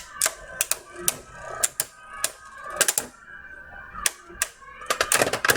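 Beyblade Burst spinning tops clashing in a plastic stadium: a run of sharp, irregular clacks as the tops hit each other and the stadium wall, coming thickest near the end.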